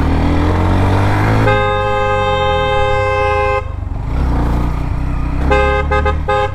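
Vehicle horn sounding one long blast of about two seconds, then several quick toots near the end, over the steady running of a motorcycle engine.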